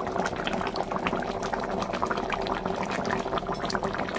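Fish curry boiling in a pan, its thick gravy bubbling with a dense run of small irregular pops over a steady low hum.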